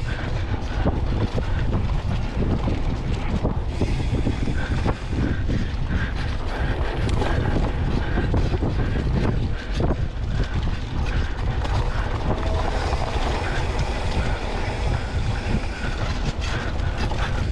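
Wind rushing over the microphone, with tyre noise and rattling from a mountain bike rolling down a dirt singletrack; many short knocks and clicks as it runs over the bumpy ground.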